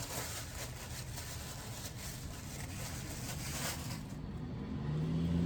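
Faint scuffing and handling noise, then a low steady hum that sets in about five seconds in.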